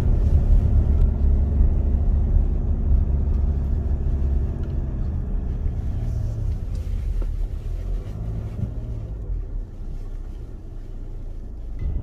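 Car engine pulling uphill with low road rumble, heard from inside the cabin; the engine note and rumble ease off and get quieter over the last few seconds.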